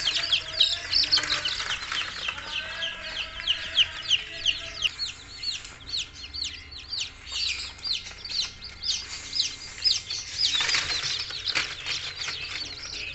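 A brood of young chicks peeping continuously, many rapid high falling peeps overlapping. About ten seconds in a short rustling flurry, a chick scrambling and flapping as it is grabbed by hand.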